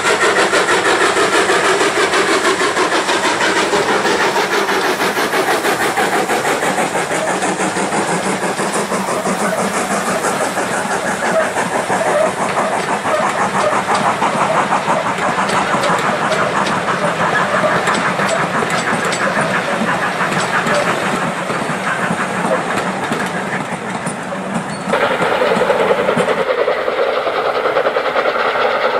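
Steam tank locomotive working a train of passenger coaches past at speed, its rapid exhaust beats mixed with the clatter of the coaches on the rails. About four seconds before the end the sound changes abruptly to a different steady noise as another steam train draws near.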